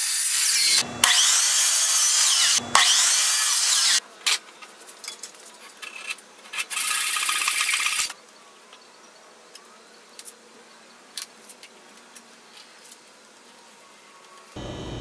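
Power miter saw blade cutting through a small wooden block, a loud high-pitched grinding cut briefly broken twice. A few scattered clicks and another short burst of noise follow, then only faint ticks and knocks of handling.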